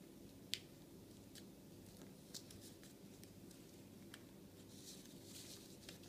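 Near silence, with a few faint crinkles and ticks from foil-backed origami paper being squash-folded by hand, over low room tone.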